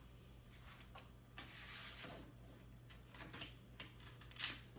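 Faint rustling and soft scraping of adhesive vinyl wrap film being handled and smoothed by hand, in a few short spells over a steady low hum.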